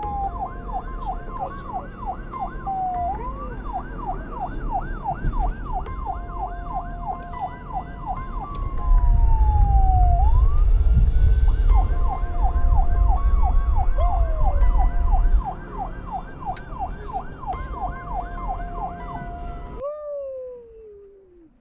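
Police car siren cycling between a fast yelp and slower falling wails, then winding down with a long falling tone near the end. A heavy low rumble of wind and road noise from the open-top vehicle swells up in the middle.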